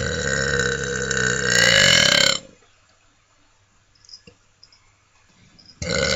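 A person burping: one long, loud burp lasting about two and a half seconds, then a pause, and a second long burp starting near the end.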